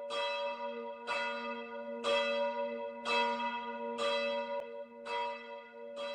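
A church bell struck repeatedly at about one strike a second, each stroke ringing on into the next.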